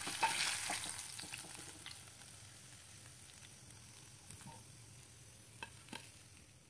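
Fish frying in hot oil in a nonstick pan, sizzling as the fried rohu pieces are lifted out, the sizzle fading away over the first couple of seconds. Two faint clicks near the end.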